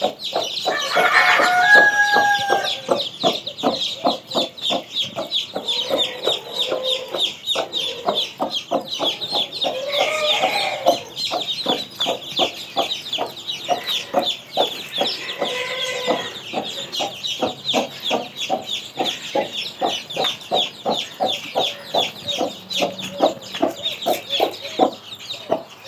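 A brood of chicks peeping continuously in rapid high chirps while the mother hen clucks steadily among them. Several longer, louder chicken calls stand out, the loudest about a second in.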